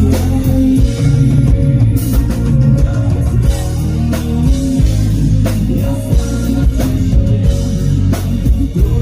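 Rock band playing live: guitars over a drum kit keeping a steady beat, in an instrumental passage without singing.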